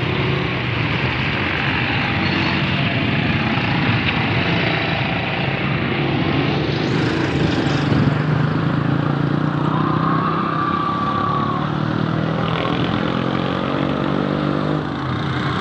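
Street traffic heard from a moving vehicle: a steady engine hum with road noise and motorcycles and auto-rickshaws passing close by. A brief high tone sounds about ten seconds in.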